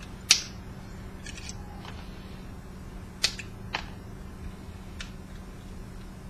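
Small hand cutters snipping the copper wires of a wound coil: one sharp snip near the start, the loudest, then several lighter snips and clicks at irregular intervals.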